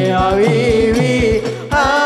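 Hadrah music: a male voice sings a winding, ornamented melody through a microphone and PA over a steady beat of rebana frame drums. The singing breaks off briefly about a second and a half in, then a new phrase begins.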